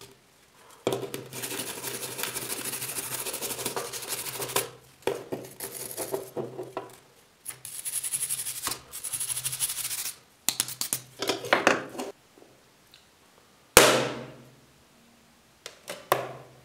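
Stiff hand brush scrubbing rust off an antique iron areca nut cutter, first in one long stretch and then in shorter bursts. About three-quarters through, one sharp knock rings out, followed near the end by a few light clicks.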